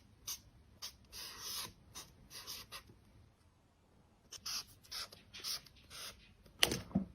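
A series of short, faint scratchy sounds at an uneven pace, with a pause partway through and a louder, fuller burst near the end.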